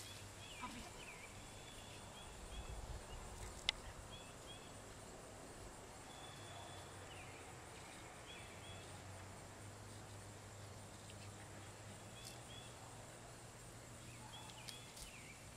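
Faint outdoor ambience on a lawn: a steady low hum with short high chirps every few seconds, and a single sharp click about four seconds in.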